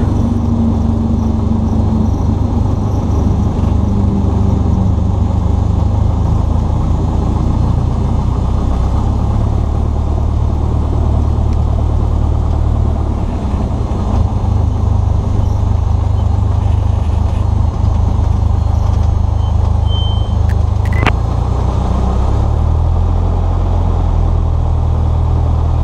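Cessna 172S's four-cylinder Lycoming engine and propeller running at low power, heard inside the cockpit as a steady low drone; its pitch shifts slightly near the end.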